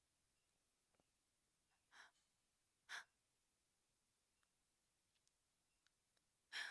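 A frightened woman's short breathy gasps: three quick intakes of breath, a soft one about two seconds in, a sharper one a second later, and the loudest near the end.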